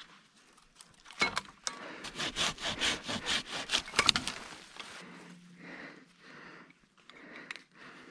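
Hand saw cutting a dry tree branch in quick back-and-forth strokes, starting about a second in and lasting about three seconds.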